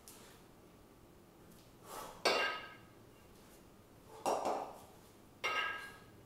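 A pair of 20 kg kettlebells clanking together during long-cycle reps: two ringing metallic clanks about three seconds apart, each with a shorter, duller knock or rush of noise just before it.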